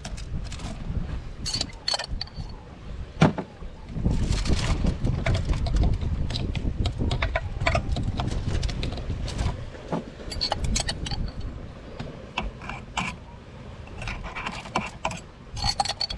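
Food-preparation handling noises: scattered clicks, taps and clinks of utensils, with one sharp knock about three seconds in. Wind rumbles on the microphone for several seconds in the middle.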